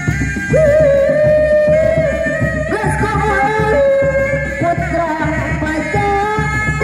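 Seni Reak ensemble playing: dog-dog frame drums and a barrel drum beaten in a fast, dense rhythm under a held, ornamented melody line that steps and bends in pitch.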